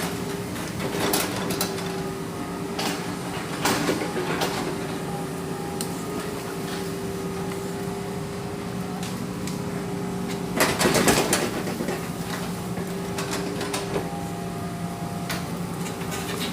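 Excavator diesel engine running at a steady hum, with several loud metallic clanks and knocks as the machine works. The longest burst of clatter comes about eleven seconds in.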